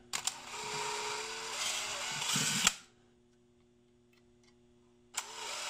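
Power drill with a small bit boring out via holes in a printed circuit board to take thicker capacitor leads. The motor runs with a steady whine for about two and a half seconds, stops, then starts again near the end.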